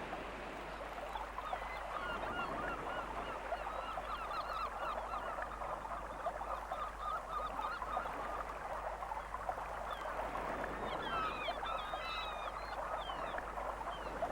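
A flock of shorebirds calling together: a steady chatter of many short, overlapping calls, with higher chirps joining in over the last few seconds.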